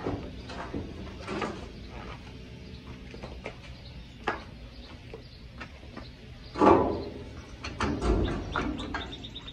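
Scattered clanks and knocks of steel frame rails, trunk pan and jig being shifted by hand on a floor jack under a car body. The loudest knock comes about two-thirds of the way through, followed by a cluster of knocks and a low thud.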